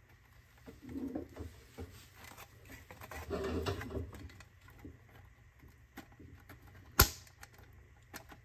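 End plate of a fluorescent fixture being worked onto its sheet-steel channel: faint rubbing and small knocks of plastic and metal, then one sharp click about seven seconds in as it goes into place.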